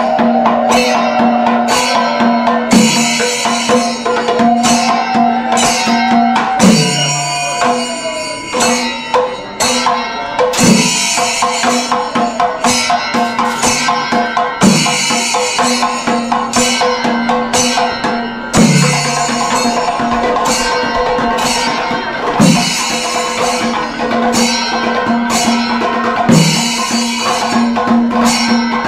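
Kerala temple percussion ensemble playing a fast, dense drum rhythm over a steady held drone note. The drone breaks off every few seconds with a low drum stroke, and a wavering melody line runs through roughly the first eight seconds.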